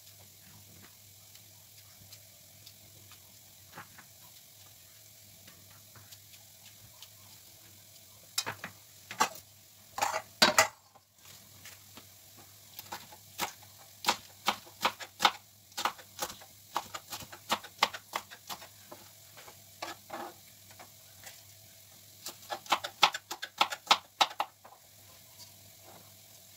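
Kitchen knife chopping green peppers on a plastic cutting board: irregular sharp taps, starting about a third of the way in and coming in quick runs near the end.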